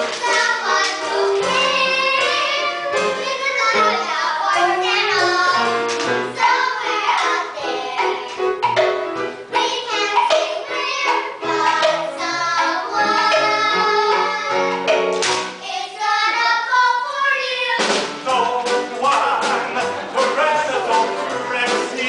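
Children singing a musical-theatre song together with instrumental accompaniment.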